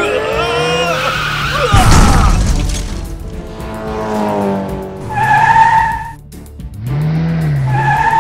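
Cartoon sound effects of a race car skidding with squealing tyres, then a loud crash about two seconds in as it smashes through a wall, over background music.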